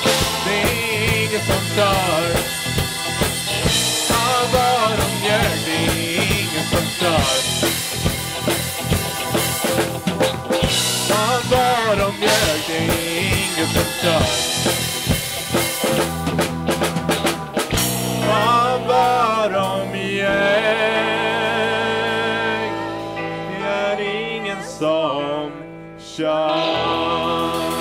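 Live rock band playing: drum kit, electric guitar, bass guitar and singing. About two-thirds of the way through, the drums stop and held notes ring on. The music dips briefly near the end, then comes back in.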